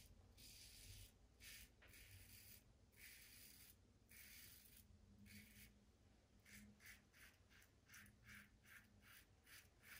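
Faint strokes of a Blackland Vector safety razor with an Artist Club style blade cutting stubble through lather on the neck. The strokes are short, a dozen or more of them, and come quicker and shorter in the second half.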